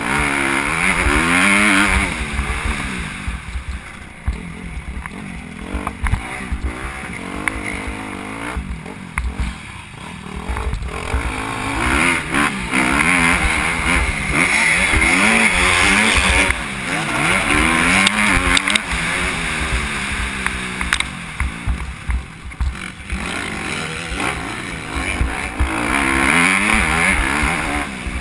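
Motocross bike engine heard from on board, revving up and falling back again and again as the rider accelerates through the gears and rolls off the throttle. There are two longer off-throttle lulls, around a third of the way in and again past the two-thirds mark.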